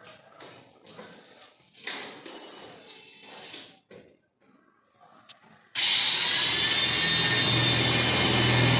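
A corded electric drill starts about six seconds in and runs steadily at full speed, boring into an aluminium door frame. Before it, a few quiet knocks and handling sounds.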